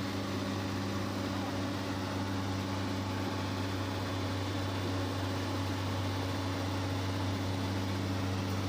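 Hydraulic excavator's diesel engine running at a steady speed, a constant low drone with no revving.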